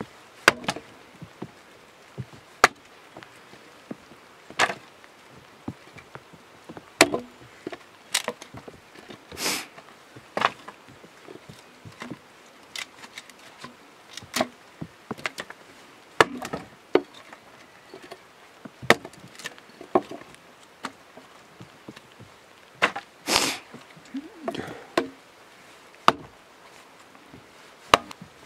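Small axe chopping and splitting firewood into thin sticks: sharp wooden chops at an irregular pace, roughly one a second, with two longer, louder splitting sounds as pieces come apart.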